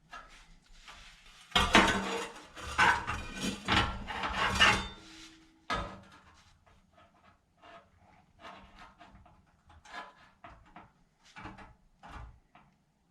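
Metal pieces and tools clanking and clattering as they are handled: a dense flurry of loud knocks for a few seconds, one sharp clack, then scattered light clinks.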